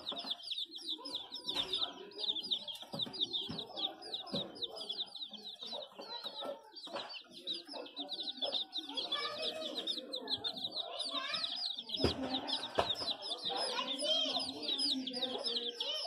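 A brood of chicks peeping nonstop, many short high peeps overlapping, each one falling in pitch.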